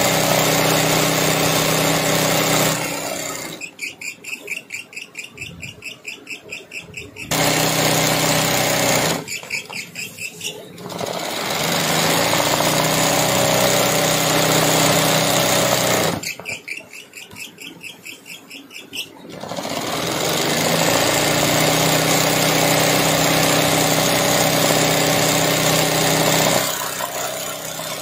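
Electric sewing machine stitching free-motion embroidery, its motor running fast with a steady hum. Twice it slows and the sound turns into a quick pulsing of needle strokes, about four a second, and it eases off near the end.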